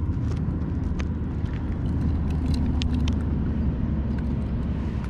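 Flowing river water making a steady low rumble, with scattered small splashes and clicks.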